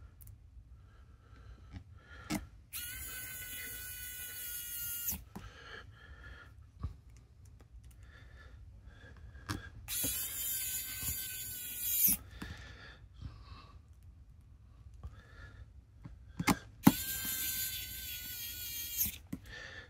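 Electric precision screwdriver driving small screws into a metal phone case frame: three runs of a high motor whine, each about two seconds long, with small clicks of screws and bit being handled between them.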